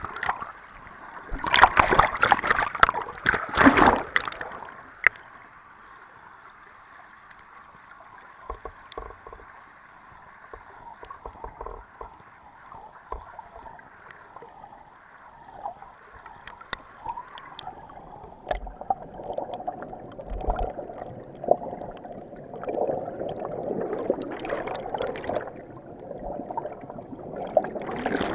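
Water splashing and bubbling, heard through a camera held underwater. There are loud splashes in the first few seconds, then a quieter stretch with scattered small clicks, and then bubbling and gurgling that grows louder toward the end.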